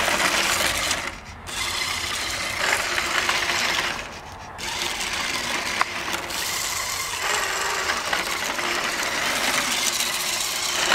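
Remote-control Ferrari Enzo toy car's small electric motor and gears whirring as it drives on wet asphalt. The whir cuts out briefly about a second in and again around four seconds in, as the throttle is let off.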